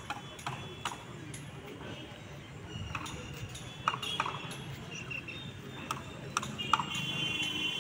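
Footsteps of sandals on concrete: scattered sharp slaps at uneven spacing.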